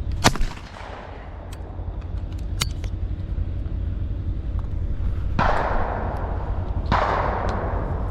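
A single shotgun shot at a clay target, a sharp loud report about a quarter second in. Later come two softer rushing bursts that die away over about a second each, over a steady low rumble.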